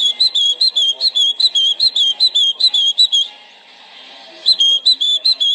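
A nestling bird begging for food: rapid high-pitched cheeps, about five a second. They stop for about a second past the middle, then start again.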